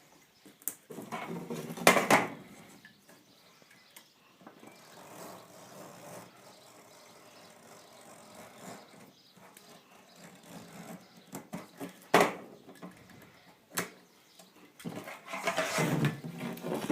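Knife trimming excess screen mesh along the spline groove of a window screen frame: faint, irregular scraping and handling noise. There is a louder rough stretch about two seconds in and a couple of sharp clicks of the blade or frame near the end.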